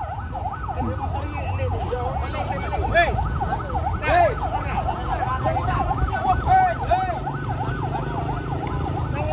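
Electronic siren in rapid yelp mode, its pitch sweeping up and down several times a second without a break, over the low running of truck engines. A few shorter rising-and-falling tones sound over it now and then.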